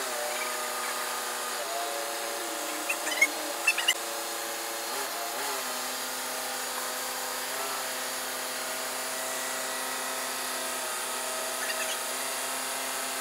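Loader engine running steadily, its pitch shifting up and down a few times as it creeps along carrying a heavy machine. A few short, sharp squeaks come about three to four seconds in.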